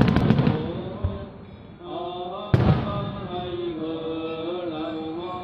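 Aerial firework shells bursting: a quick cluster of loud bangs at the start and another single bang about two and a half seconds in, with music playing throughout.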